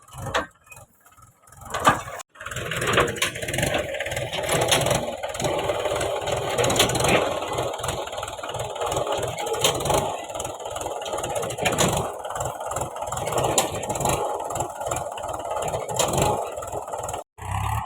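Heavy-machinery diesel engine running steadily, with irregular knocks and clanks throughout.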